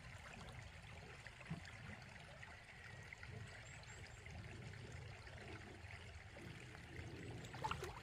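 Faint, steady trickle of a shallow mountain stream, with a few small splashes and knocks of water and stones as a person wades and sets a fish trap, the clearest just before the end.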